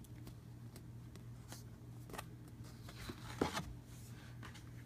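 Game cards being handled on a tabletop: a scatter of light clicks, taps and rustles of card stock, with the loudest flurry a little past halfway.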